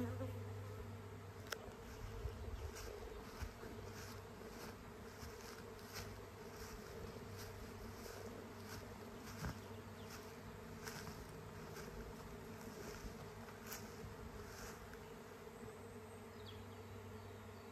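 A honeybee swarm in flight overhead: the steady buzzing of thousands of bees, with brief louder buzzes now and then. The sound is the colony swarming, the queen and part of the bees leaving the hive for a new home.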